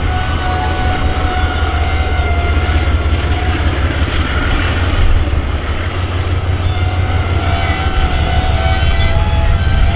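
General Electric DX-class diesel-electric locomotives passing at the head of a freight train, with a steady low engine rumble. Thin, high wheel squeals fade in and out over the rumble.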